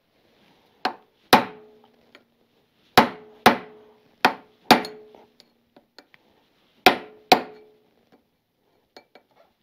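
Hammer striking a large chisel wedged behind the outer side plate of a motorcycle chain on its rear sprocket, knocking at a link whose rivet heads have been ground off. Eight sharp metal blows, in four pairs, each leaving a short ringing; the plate is stubborn and not yet coming free.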